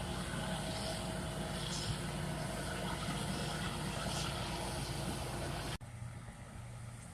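Farm harvest machinery engine running steadily. About six seconds in it cuts abruptly to a quieter, different low engine hum.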